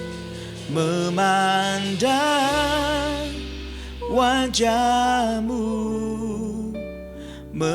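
Slow worship song: a singer holds long notes with vibrato over sustained keyboard chords, with a bass note coming in about two and a half seconds in.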